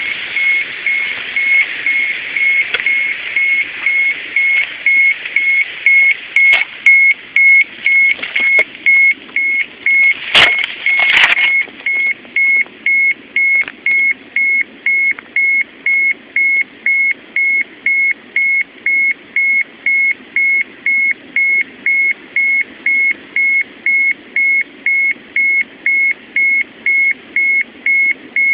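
Handheld radiation monitor's alarm beeping steadily, a high tone about twice a second, set off by a high radiation reading. Two sharp knocks about ten seconds in.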